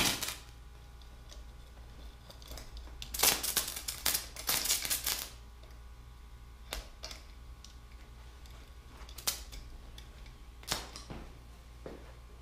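Stick-welding arc on 6011 3/32 electrode at about 50 amps, crackling and spitting in short irregular bursts, with the longest run of crackle around three to five seconds in, over a low steady hum.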